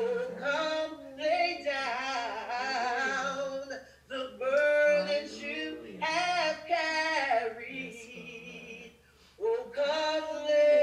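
Unaccompanied singing of a slow hymn: a voice holding long notes and sliding between them, breaking off briefly twice.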